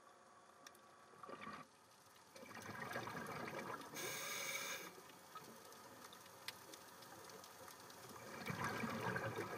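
Faint underwater bubbling from scuba divers' exhaled breath, coming in uneven bursts: a short one about a second in, a longer stretch from about two seconds in with a brighter hiss around four seconds, and another swell near the end.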